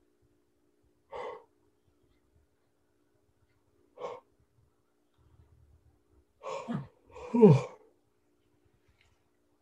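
A man's two short breathy bursts about three seconds apart, then a long, loud yawn whose voice slides down in pitch about three quarters of the way through. It is the involuntary yawning he says comes over him when energy shifts.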